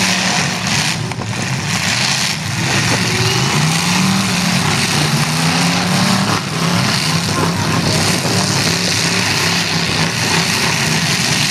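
Demolition derby cars' engines running and revving, one engine's pitch rising a few seconds in, over steady loud noise.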